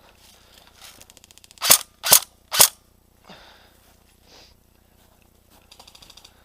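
Airsoft gun firing three loud, sharp single shots about half a second apart, with a quick run of faint rapid ticks just before them and again near the end.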